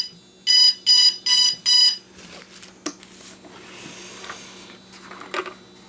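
DJI Phantom 2 Vision quadcopter beeping at power-on: four short identical beeps in quick, even succession, followed by faint handling rustle and a couple of light clicks.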